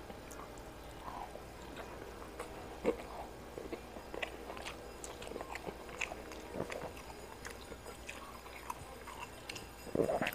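Eating with bare hands: chewing and mouth smacks, with many short scattered clicks as fingers gather rice and food. There is a louder bite about ten seconds in.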